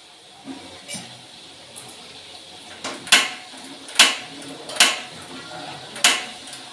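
A cooking utensil knocking against a steel cooking pot: four sharp metallic clinks from about three seconds in, roughly one a second, after a couple of softer knocks early on.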